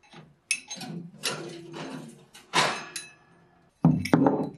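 Iron axe head scraping and clattering across the metal wire rack of a toaster oven as it is dragged out with a metal rod. Near the end come two heavy knocks as it is set down on a wooden workbench.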